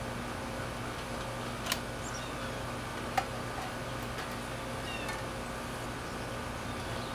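Tongue jack of a log splitter being cranked to level the machine: two sharp metal clicks about a second and a half apart, over a steady mechanical hum and a few faint high chirps.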